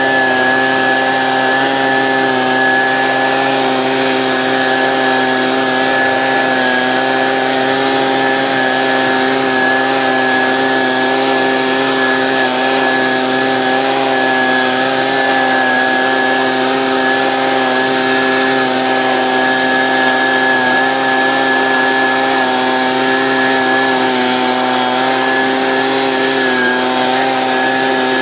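Husqvarna 125B handheld leaf blower's small two-stroke engine running steadily at high throttle, blowing out roof gutters, its pitch dipping slightly now and then.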